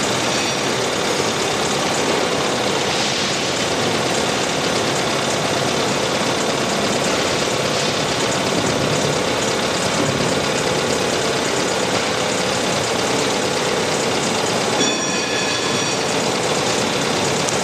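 Shallow, fast water rushing and foaming over stones in a steady, unbroken roar.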